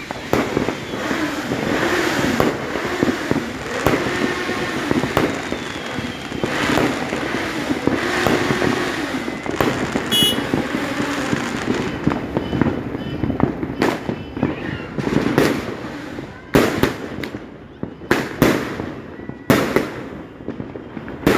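Fireworks going off: a dense, continuous run of crackles and bangs that thins out about two thirds of the way in to single sharp bangs every second or so.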